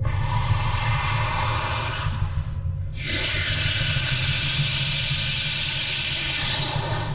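A loud hissing noise in two long stretches, broken off for about half a second two and a half seconds in, over a steady low rumble.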